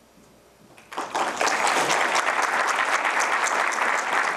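Audience applauding: a room full of people clapping, starting about a second in after a brief hush.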